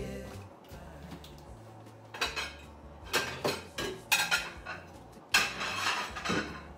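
Dishes and kitchenware clinking and clattering as they are handled on a kitchen counter, in several short bursts from about two seconds in.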